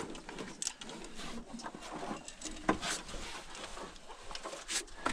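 Someone climbing down a mine-shaft ladder with a safety rope in hand: scattered knocks and scrapes of boots and gloves on the rungs, with rustling of clothing and rope.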